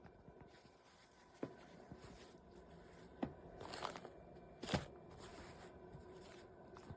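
Faint handling sounds: four sharp clicks and knocks, the loudest a little past the middle, with short bits of crinkling.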